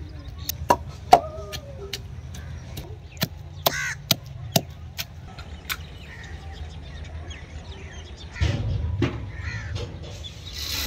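Sharp clicks of a kitchen knife cutting tomatoes over a wooden mortar, a dozen or so in the first half, with a bird calling a few times, in arched calls. About eight and a half seconds in comes a short burst of rustling and handling noise.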